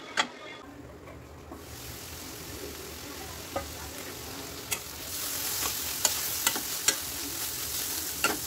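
Carrot and bean stir-fry sizzling in a stainless steel pan as a spoon stirs it, with sharp clicks of the spoon striking the metal pan. The sizzle grows louder about halfway through.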